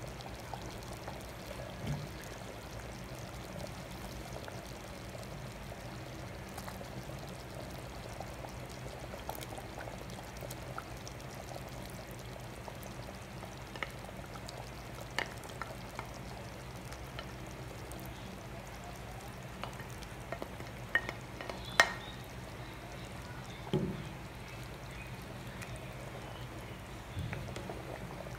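Menudo stew simmering in a pot with a steady bubbling hiss over a low hum. Scattered knocks and clinks come as diced carrots and potatoes are tipped in from a plate and stirred with a wooden spoon; the loudest knock is about two-thirds of the way through.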